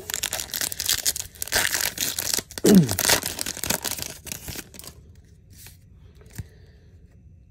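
Wrapper of a 2022 Topps baseball card pack being torn open and crinkled in the hands, a dense rustling that stops about four and a half seconds in and leaves only a few light clicks.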